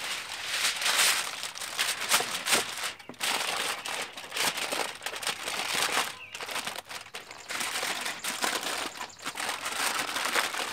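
Aluminum foil crinkling in irregular rustles and crackles as it is folded and pressed around a rack of baby back ribs, with a couple of brief pauses.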